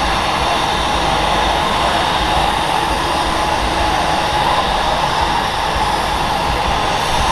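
Steady, loud aircraft engine noise: a continuous rushing roar with a constant whine in it.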